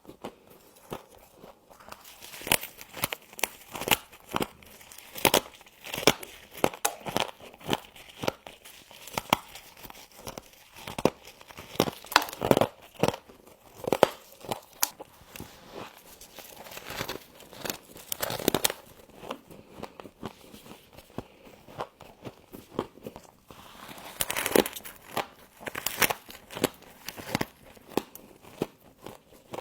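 Close-up crunching of frost being bitten and chewed, a dense run of sharp, irregular crackles with louder crunches scattered through.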